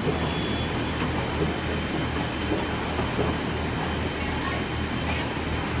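Automatic carousel screen-printing press running: a steady, pulsing low mechanical rumble with hiss, and a faint high falling whine now and then.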